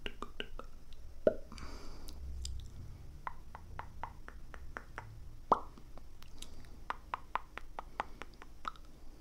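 ASMR mouth sounds: a run of quick tongue clicks, about four a second, with two louder lip pops, one about a second in and one halfway through.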